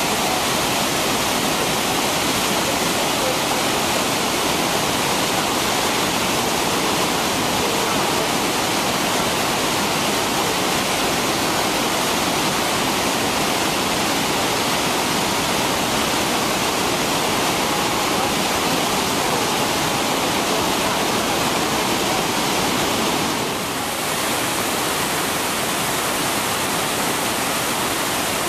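Massive waterfall at Iguazu Falls' Devil's Throat: a loud, steady, dense rush of falling water. It dips briefly in level about four-fifths of the way through.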